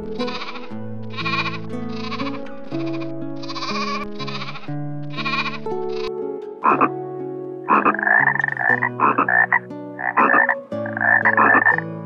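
Lamb bleating over soft background music: a run of about eight short rasping calls, then from about halfway five louder, longer bleats.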